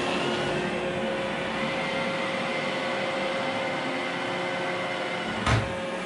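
iRobot Roomba i3 robot vacuum running: a steady whirring whine from its vacuum motor and brushes. A brief thump about five and a half seconds in.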